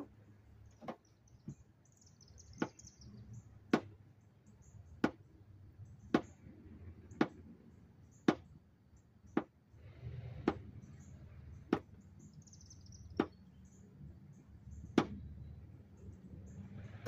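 Knife chopping a sausage into bait pieces on a hard surface: a dozen or so sharp knocks, about one a second. Birds chirp faintly in the background.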